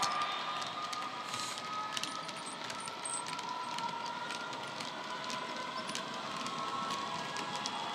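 Diesel engine sound from a Bachmann Class 66 model's DCC sound decoder, a Class 66 sound file played through a small ESU speaker, running steadily with a few held tones. Light wheel clicks come over rail joints throughout as the wagons roll past.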